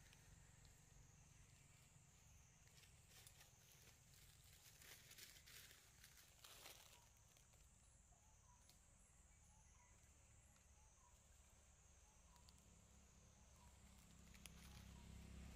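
Near silence: faint outdoor ambience with a thin, steady high-pitched hiss and a few soft rustles about halfway through.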